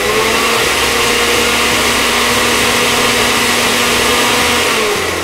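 Countertop blender with a glass jar running at a steady speed, chopping fresh herbs into white vinegar. The motor is switched off about five seconds in and winds down.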